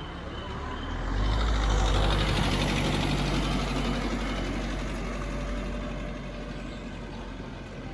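A motor vehicle driving past, its engine sound swelling about a second in and slowly fading away over the following seconds.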